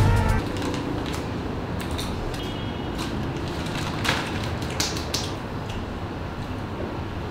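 Music cuts off at the very start. Then come scattered clicks and crinkles of a plastic snack packet being handled, over a steady room hiss.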